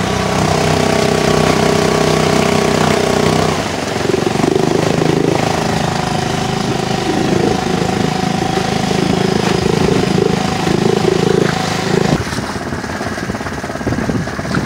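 Small Honda outboard motor running steadily under way, its note shifting about three and a half seconds in. The engine sound drops out about twelve seconds in, leaving a noisy rush.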